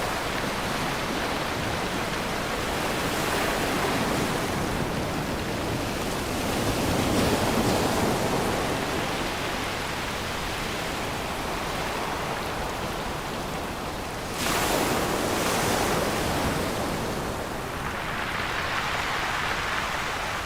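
Ocean surf: a steady wash of waves on the shore that swells and ebbs, with a wave breaking suddenly about two-thirds of the way through.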